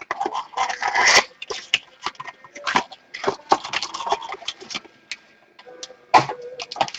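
Trading-card pack packaging being torn open and handled, with irregular crinkling, rustling and small clicks.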